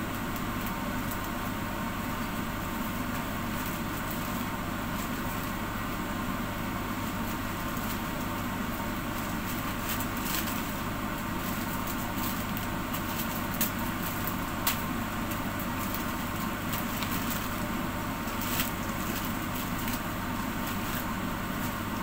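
A covered pot of sinigang simmering on a glass-top stove: a steady hiss with a low hum beneath it, and a few faint ticks in the second half.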